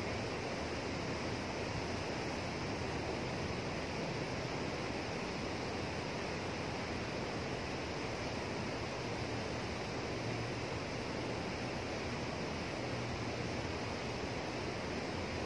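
Fast water rushing and churning below a sluice gate: a steady, even roar with no breaks.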